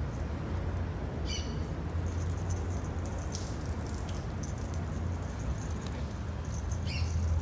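Outdoor background: a steady low rumble with two brief high chirps, one about a second in and one near the end.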